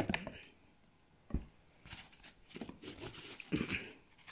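Cardboard box lid slid off and a foam packing sheet handled, giving short scraping and rustling sounds with a soft knock about a second and a half in.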